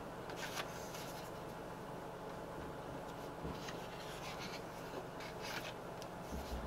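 Pages of a stone-paper sketchbook being turned by gloved hands: several brief, soft papery swishes and rustles.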